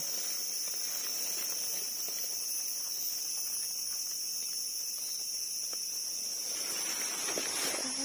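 Steady high-pitched drone of insects in a wet forest, with a few faint knife scrapes on a mushroom stem. Leaves rustle and brush near the end as someone pushes through the undergrowth.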